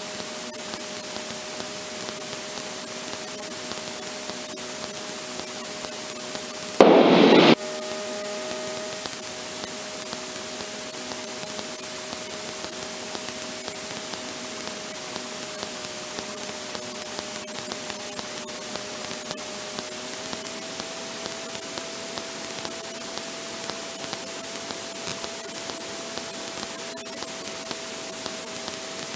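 Steady drone of a Kitfox light aircraft's engine and propeller in flight, heard as an even hiss with a steady hum, its pitch stepping up slightly about twenty seconds in. About seven seconds in, a loud burst of static cuts in for under a second.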